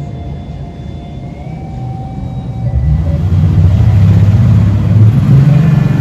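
Eerie background music, with a loud low rumble swelling in about halfway through and staying to the end.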